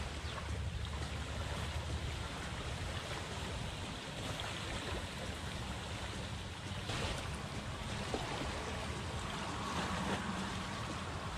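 Shallow seawater lapping and sloshing, with wind rumbling on the microphone and a brief splash about seven seconds in.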